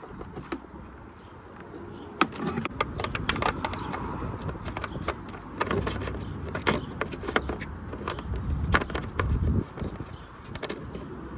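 Irregular plastic clicks and knocks from a tail light assembly and its bulb sockets being handled and fitted, over a low rumble.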